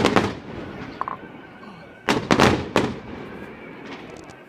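Fireworks going off at close range: a loud bang at the start, a smaller pop about a second in, then a rapid cluster of bangs about two seconds in, each with a short crackling tail.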